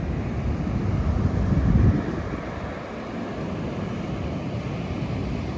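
Ocean surf and wind buffeting the phone's microphone: a steady low rumble that swells to its loudest about two seconds in, then eases.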